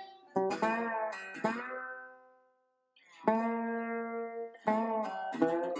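Background music of plucked string notes and chords, each ringing and dying away. The playing fades out about halfway through and resumes a moment later.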